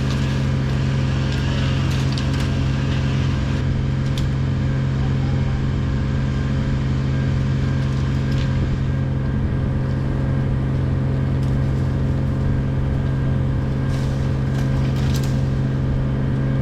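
An engine running steadily at a constant speed, with a few short, sharp cracks or knocks over it.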